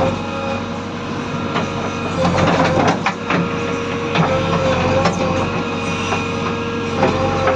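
JCB 3DX backhoe loader's diesel engine running under work, with a recurring high tone and scattered metallic clanks and knocks.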